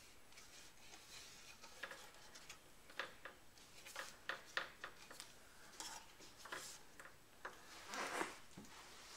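Faint handling noise as a bait bar is pressed onto a boat's tackle hatch with double-sided tape: scattered small clicks and taps, with a longer rub about eight seconds in.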